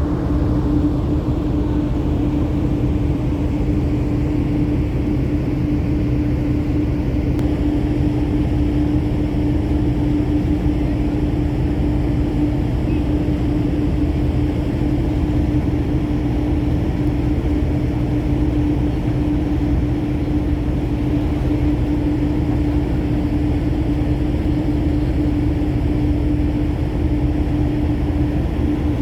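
Car ferry's engines running as the ship gets under way, heard aboard as a steady low drone with one constant hum tone.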